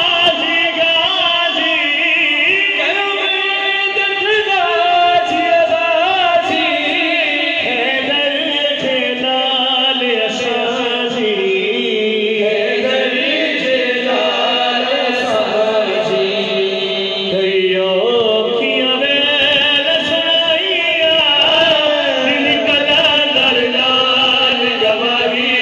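A lead male singer and a chorus of young men singing a devotional song together into microphones, in long held, ornamented lines.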